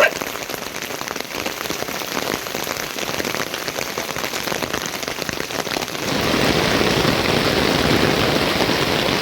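Heavy rain falling steadily, becoming louder and denser about six seconds in.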